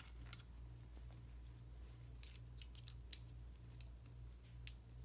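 Faint rustling and scattered light clicks of clothes and items being handled and tucked into a packed suitcase, over a steady low hum.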